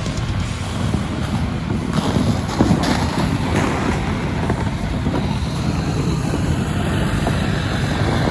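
Vehicle driving along an off-road trail: steady engine and tyre rumble with wind on the microphone and a few brief knocks about two to three and a half seconds in.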